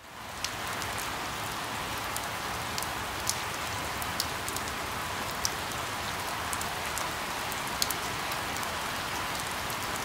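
Steady rain falling on leaves: a dense, even hiss with scattered sharp drop ticks here and there.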